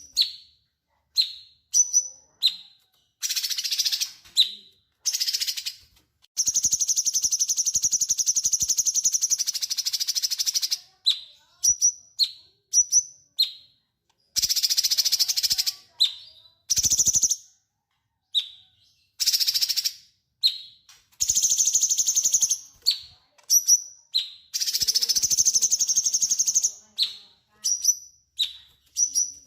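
Cucak cungkok songbird singing energetically. Short sharp chirped notes repeat every second or so, alternating with long rapid trilling phrases, the longest about four seconds.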